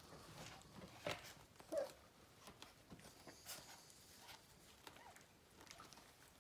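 Micro mini sheepadoodle puppies scuffling and pawing on a blanket: faint soft taps and rustles, with one short squeak just under two seconds in.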